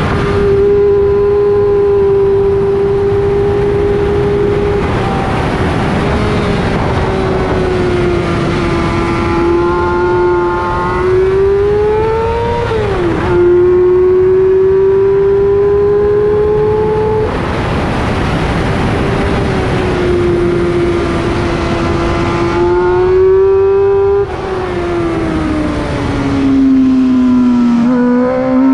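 Onboard sound of a liter-class sportbike engine running at high revs on a race track, its pitch rising and falling slowly with the throttle, over a rush of wind noise. About halfway through the revs drop sharply at a gear change and climb again. Near the end they sag and then rise.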